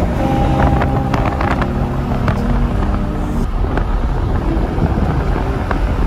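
Strong wind rumbling on the microphone. Over it, held chords of background music carry on and stop about three and a half seconds in.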